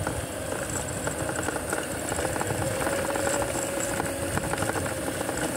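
Electric minibike riding over rough grass: a steady motor whine that comes in about halfway, under a rough rumble and rattling from the ride.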